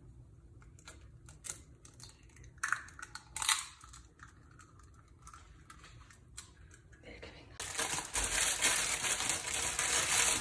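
A raw egg is cracked against a stainless steel bowl and the shell is broken open over minced dog food, with small clicks and crackling. About three-quarters of the way in, a steady hiss starts suddenly and carries on to the end.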